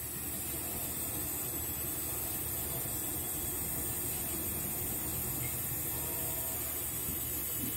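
Small electric scale RC winch running slowly and steadily, its geared motor giving a low, even whir with hiss as it winds synthetic line onto the drum.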